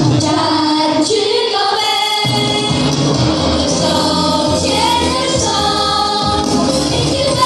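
Children singing a song together with a musical accompaniment, amplified through loudspeakers in a hall.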